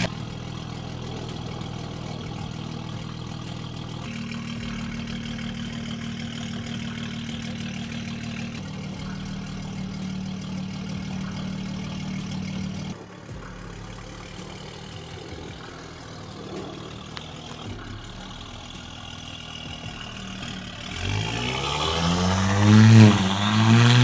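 Turbocharged Audi SQ5 engine, breathing through a new aftermarket cat-back exhaust and a catless downpipe, idling steadily just after a cold start. About halfway through the idle drops and turns quieter. Near the end it is revved a few times, the pitch rising and falling.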